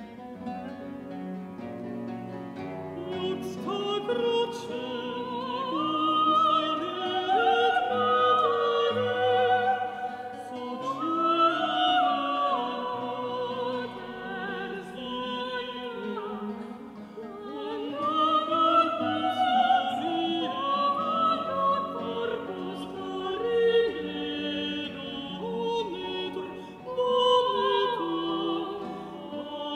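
A soprano and a countertenor singing a classical duet in operatic style, the two voices entering a few seconds in over a guitar accompaniment.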